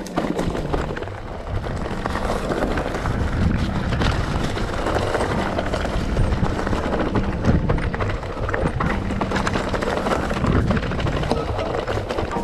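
Mountain bike riding over a rough trail: tyres on rock and the bike's parts rattling, a constant stream of small knocks and clatter.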